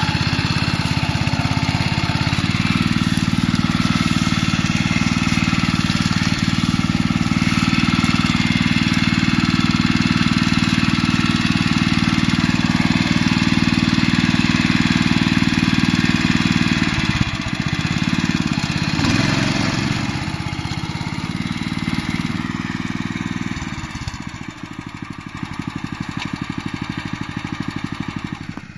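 Small petrol engine of a walk-behind motor hoe running steadily and loudly under load as its tines churn through deep mud, where the machine is bogging down. About two-thirds of the way in the engine note wavers and changes, and near the end it runs lower and quieter with an even pulse.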